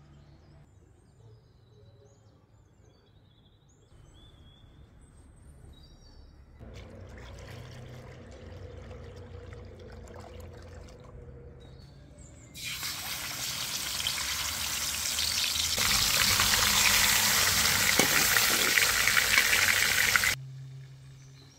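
Sour orange juice being poured and splashing from one plastic bowl into another. Then chicken breasts sizzle loudly as they fry in a metal pot: the sizzle starts suddenly about halfway through, grows louder, and cuts off shortly before the end. A few faint bird chirps at the start.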